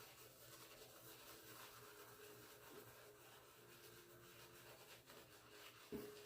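Very faint scratchy rubbing of a silvertip badger shaving brush working shave cream into a lather.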